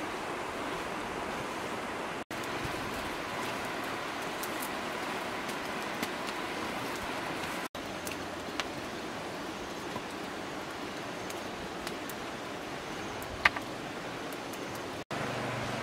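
Steady rush of a flowing river, with scattered small crackles from a wood fire and one sharp crack about two seconds before the end.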